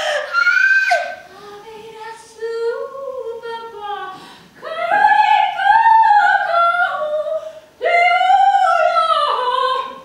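A woman's voice singing long held notes that glide up and down, in phrases a few seconds long with short breaks between them.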